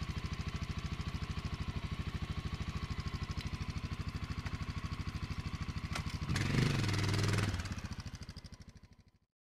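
Honda XR650L's air-cooled single-cylinder four-stroke engine idling with an even, quick beat. About six seconds in there is a click, then the engine revs briefly as the bike pulls away, and the sound fades out.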